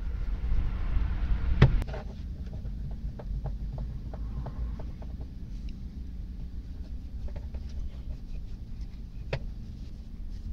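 Cloth rubbing over a steel vernier caliper, with scattered small clicks and taps of the metal being handled and two sharper clicks, about two seconds in and near the end, over a steady low rumble.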